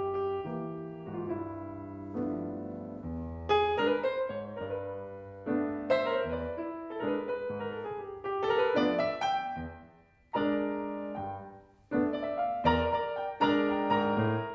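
Grand piano played solo: chords struck and left to ring, with two brief pauses in the second half before it comes back in sharply.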